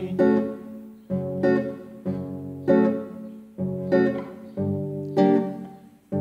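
Instrumental passage of a song: strummed acoustic guitar chords, roughly one a second, each struck sharply and then ringing out and fading.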